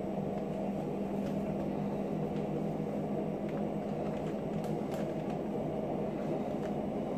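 A steady low mechanical hum throughout, like a fan or appliance running, with a few faint ticks and rustles as oak sawdust is poured from a plastic bag into a stainless-steel mesh cold smoke generator.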